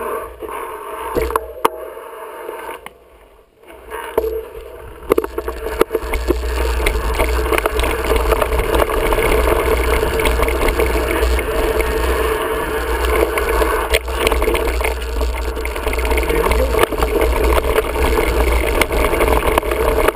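Wind rushing over the microphone of a moving mountain bike, mixed with the rattle of the bike and its tyres rolling on a dirt singletrack. The first few seconds are quieter and uneven, with a few sharp knocks. From about six seconds in it becomes a steady loud rush.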